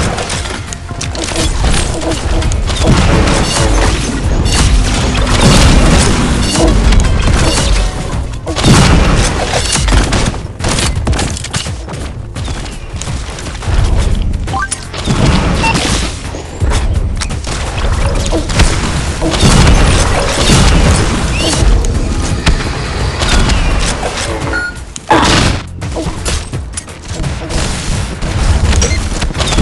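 Fireworks going off: many loud booms and bangs in quick succession, with music playing underneath.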